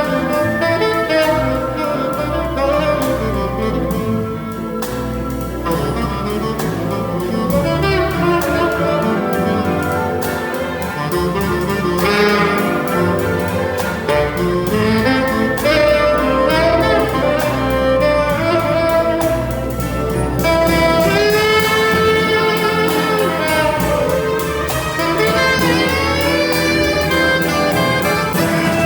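Symphonic jazz orchestra playing an instrumental passage of a blues number live, with a melody line bending in pitch over the band in the second half.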